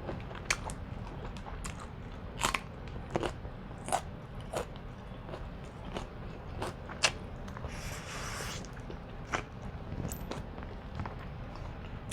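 Close-miked mouth sounds of someone eating seafood-boil shrimp: chewing and biting with irregular wet smacking clicks, and a short hissing noise about eight seconds in.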